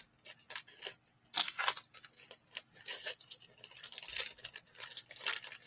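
Scattered light clicks and rustles of small items being handled, irregular and fairly quiet, over a faint steady hum.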